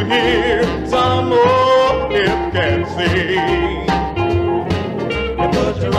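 Rhythm-and-blues jump record by a vocal harmony group playing a passage without lyrics, a melodic lead line over a steady beat.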